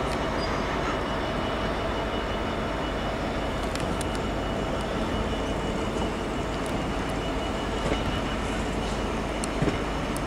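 Train of passenger coaches rolling along the track: a steady rumble of wheels on rail, with a few sharp clicks.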